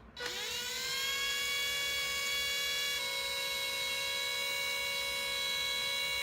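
Panasonic EY7441 14.4 V cordless drill spinning up over about a second with a rising whine, then running at a steady speed, its pitch shifting slightly about three seconds in.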